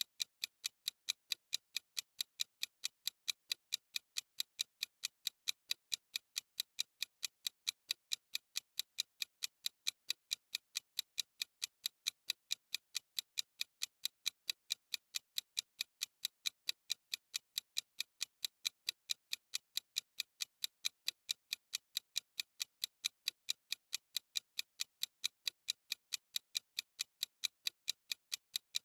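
Clock ticking sound effect of a countdown timer: sharp, even ticks at a steady rate.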